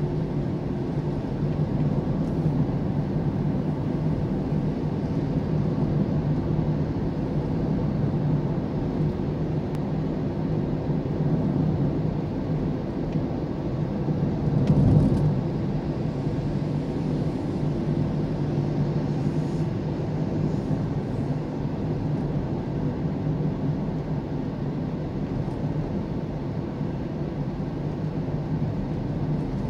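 Engine hum and road noise inside a moving car: a steady low drone with tyre rumble, growing briefly louder about halfway through.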